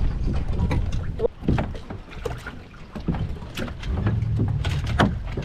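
Wind buffeting the microphone aboard a small sailboat: a low rumble that eases off in the middle and comes back stronger near the end, with scattered light clicks and knocks.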